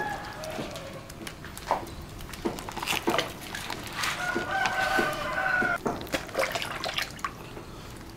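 A rooster crowing, one long call starting about four seconds in and lasting nearly two seconds, over scattered light clicks and taps.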